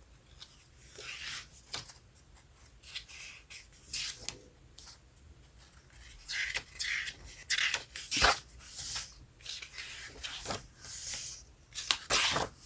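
Pages of a photobook being turned and handled: soft intermittent paper swishes and rustles, with a sharper tap about eight seconds in and another near the end.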